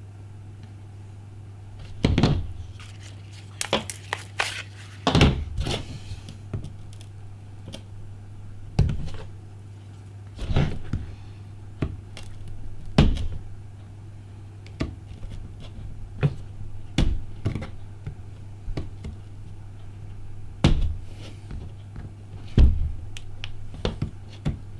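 Irregular sharp clicks and knocks, about one every second or two, as a Ka-Bar knife blade is worked against a cracked iPhone 5 screen to pry it up, over a steady low hum.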